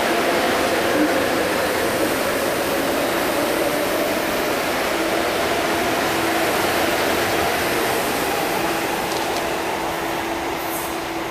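MTR electric train running past on the far track, a steady rushing noise with a faint humming tone, easing off slightly near the end.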